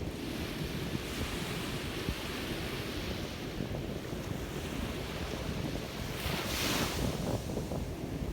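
Surf breaking and washing on a beach, with a louder wash of a wave about six seconds in. Wind rumbles on the microphone throughout.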